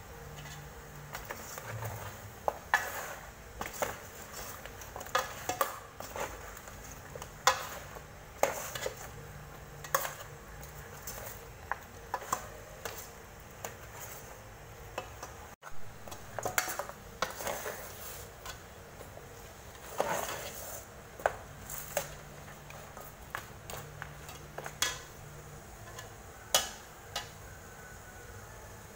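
Metal ladle knocking and scraping against the side of a metal pot while stirring pieces of pork in sauce. The clinks come irregularly, about one or two a second.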